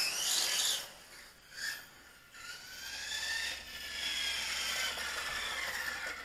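RC short course truck's brushless motor (Racerstar 2845, 5900kv) whining with tyre noise on pavement. A short blip of throttle comes about a second and a half in, then a longer run from about two and a half seconds, the whine rising a little and then easing off as the truck slows.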